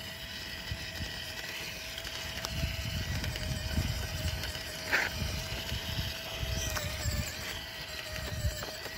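Small geared electric drive motor of a 1:16 scale RC Ford GPA amphibious jeep whining steadily as the model drives over concrete and dirt, with low rumbling on the microphone and a short high chirp about five seconds in.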